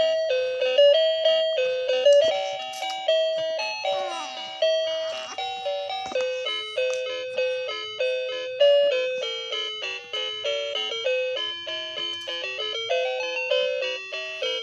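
A bright, tinkling melody of chime-like struck notes, each ringing and fading quickly, one after another without a break. A few short sliding tones sweep through about four to six seconds in.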